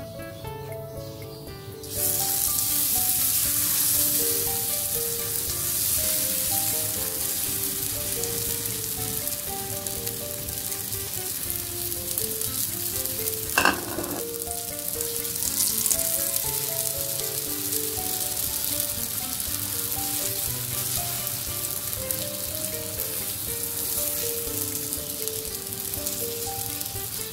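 Egg, flour and onion batter sizzling and frying on a hot iron tawa. The hiss starts suddenly about two seconds in as the batter meets the hot griddle, and there is a single sharp knock about halfway through. Background music plays underneath.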